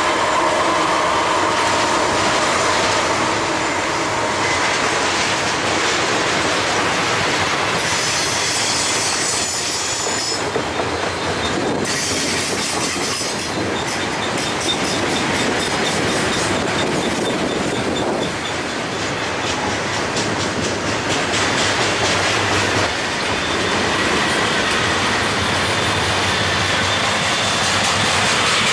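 Double-stack container freight cars rolling past: a loud, steady rumble of steel wheels on rail with high-pitched wheel squeal and rapid clicking of wheels over the track.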